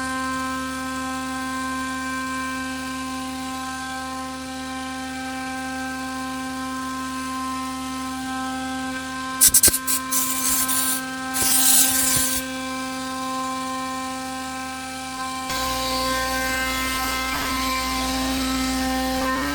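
CNC router spindle running with a steady whine while a flat end mill cuts poplar plywood. Loud rushing bursts come around the middle, and a deeper rumble joins in near the end.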